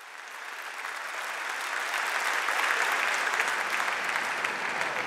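Crowd applauding, many hands clapping together; it swells over the first couple of seconds and eases off slightly near the end.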